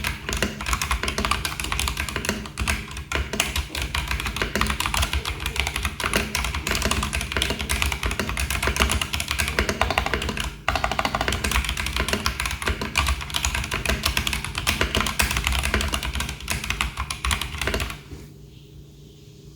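Fast, continuous typing on a mechanical keyboard fitted with AJAZZ x Huano Kiwi tactile switches, factory pre-lubed, over background music. The typing breaks off for a moment about halfway through and stops near the end.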